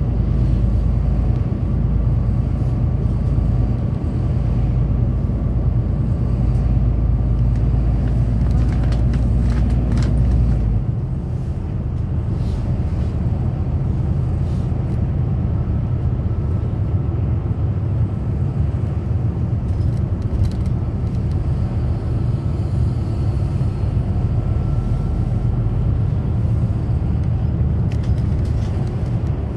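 City bus on the move, heard from inside the cabin: a steady low engine and road rumble. About a third of the way through, the deepest part of the rumble drops away and the sound thins slightly.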